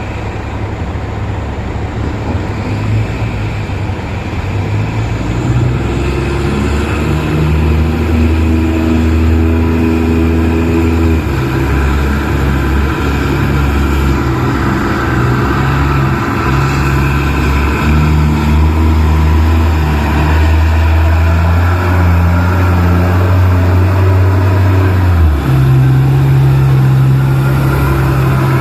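Large diesel engine of heavy mining machinery working under load, its note shifting in steps, dropping about a third of the way in and jumping higher near the end, and growing louder over the first several seconds.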